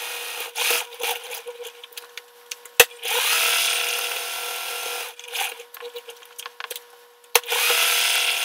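Brother XL2600i electric sewing machine running in short bursts, its motor speeding up at the start of each: briefly at the very start, for about two seconds from about three seconds in, and again from about seven seconds in. A sharp click comes just before each of the last two bursts.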